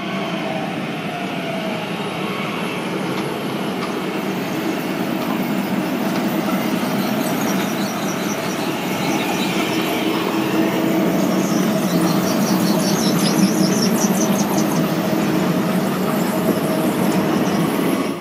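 Translohr rubber-tyred tram passing close as it rounds a curve, its running noise growing louder toward a peak late in the pass. A high-pitched squeal rises from the running gear through the middle of the pass.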